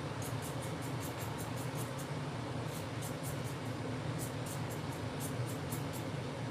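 Quick scraping strokes of a hand vegetable peeler across a potato's skin, about four a second, with a short pause about two seconds in, over a steady low hum.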